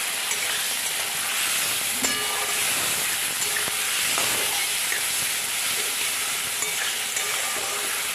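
Spiced potatoes and tomato frying in oil in a kadai, with a steady sizzle and a few light clicks of a metal spatula against the pan.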